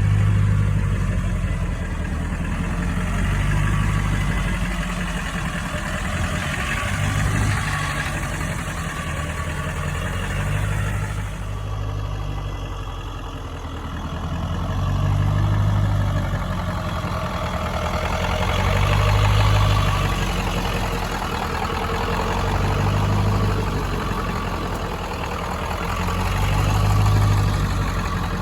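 High-mileage 7.3-litre Powerstroke V8 turbo diesel in a 2000 Ford F-250, running steadily. Its low drone swells and eases every few seconds, and the higher part of the sound changes about eleven seconds in.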